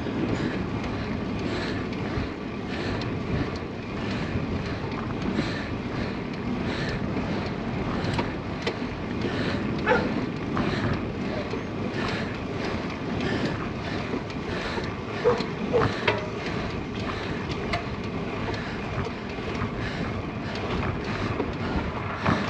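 A cyclist breathing hard and rhythmically, about one breath every second or so, while climbing on a road bike, over steady wind noise on the helmet or handlebar camera's microphone.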